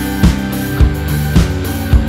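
Background music with a steady drum beat, four beats falling a little under two a second over held instrument tones.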